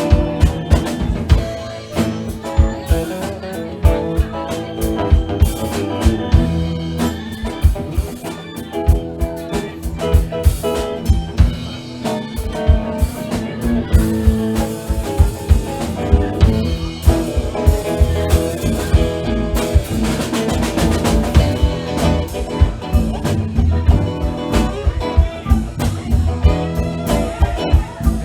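Live band playing a blues boogie, with a drum kit keeping a steady beat under guitar and no singing.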